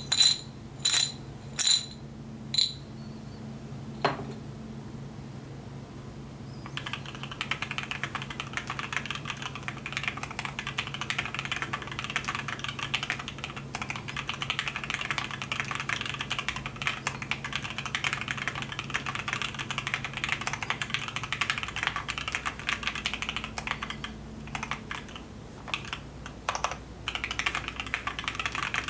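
Custom mechanical keyboard: a few separate, sharp, ringing clicks, then from about seven seconds in fast continuous typing, a dense run of key clicks that pauses briefly near the end before going on.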